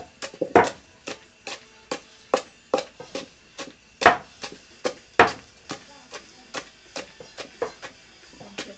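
Pestle pounding rice-field crabs in an earthenware mortar, crushing them to a paste, with about two to three dull knocks a second, some harder than others.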